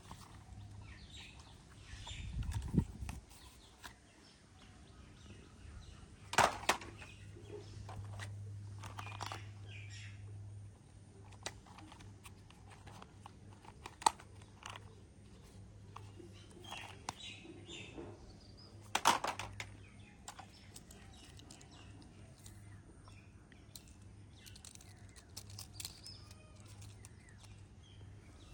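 Plastic toy vehicles being handled: scattered clicks and rattles, the loudest about a quarter of the way in and again about two-thirds in, with a dull thump early on. Faint bird chirps and a low steady hum sit underneath.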